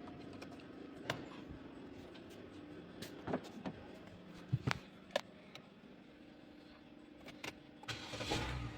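Scattered sharp clicks and knocks over a faint steady hum. Near the end comes a louder rushing burst with a low rumble.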